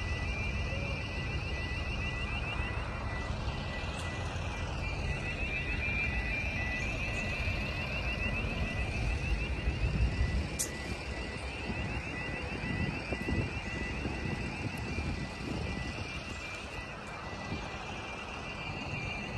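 T-class diesel-electric locomotive idling with a steady low rumble, with a steady high-pitched whine and buzz from its machinery running over it.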